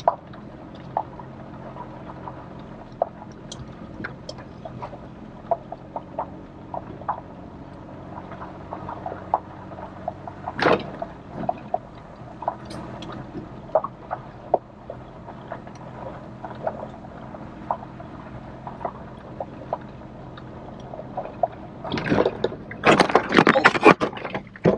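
Four-wheel-drive vehicle's engine running low and steady as it crawls over a rough dirt trail, with scattered knocks and rattles from the vehicle. Near the end, a burst of loud clattering and banging as the vehicle bounces hard over a bump.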